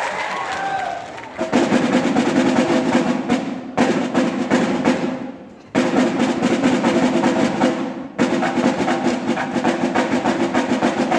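Drums played in fast rolls of rapid strikes, in runs of two to four seconds with brief breaks between, starting about a second and a half in.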